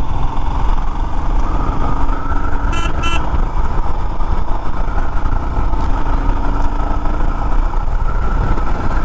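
Motorcycle riding at a steady pace, its engine running under wind noise on the rider's microphone. About three seconds in there are two short horn beeps.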